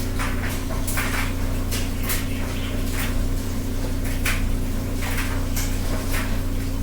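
Litex Builder ceiling fan running on high: a steady motor hum with a clicking rattle repeating about one to two times a second as the fan wobbles badly.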